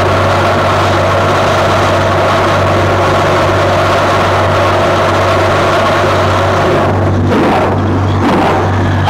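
Steam locomotive running, a loud steady mechanical noise over a low hum; from about seven seconds in, regular exhaust beats come through, a little under a second apart.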